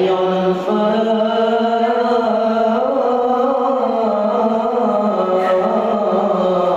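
Islamic devotional chanting: a single voice holding one long, unbroken sung line that rises and falls slowly in pitch.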